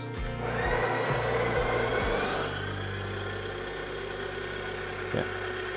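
Breville Barista Express burr grinder motor running as it grinds Grindz cleaning tablets. Its pitch rises a little over the first two seconds, then holds steady. A brief knock comes about five seconds in.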